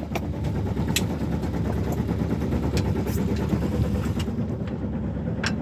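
Sailboat's engine running steadily with a low, even rumble, with a few light clicks on top.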